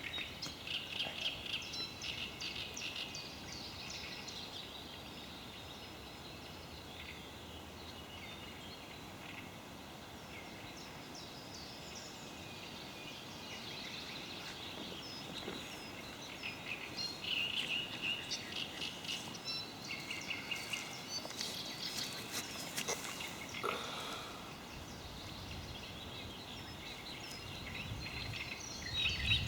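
Songbirds singing over a steady low hiss: many short chirps and quick trills, busiest at the start and again from about halfway to near the end, with one lower call that falls in pitch late on.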